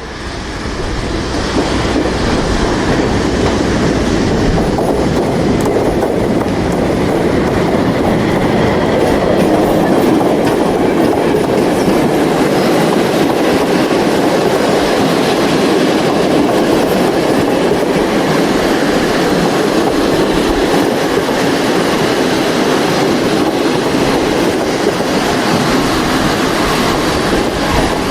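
Railway train running along the track: a steady, loud rumble and rattle of the wheels and carriages that fades in over the first second or two.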